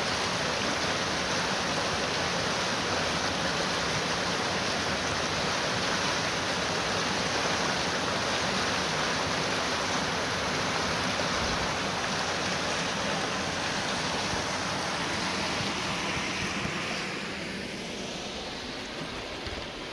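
Brook in flood after a heavy downpour, its white water rushing over a rock ledge in a loud, steady roar of noise that grows softer near the end.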